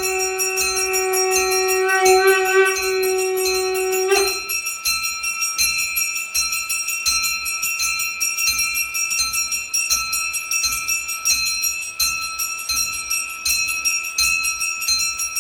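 Puja bells ringing rapidly and continuously. A long held horn-like tone with overtones sounds over them and stops about four seconds in.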